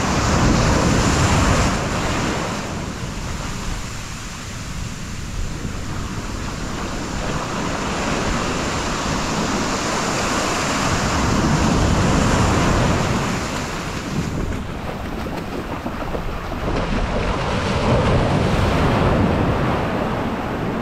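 Shore break: waves breaking and washing up a sand beach, the rush of surf swelling and easing several times as each wave comes in.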